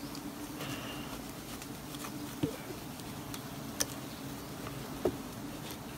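Wild honeybees buzzing around their open comb in a steady low drone. Three sharp knocks come about a second and a quarter apart.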